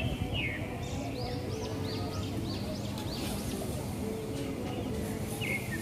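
Small birds chirping again and again in quick rising-and-falling notes, over a steady low hum of city background noise.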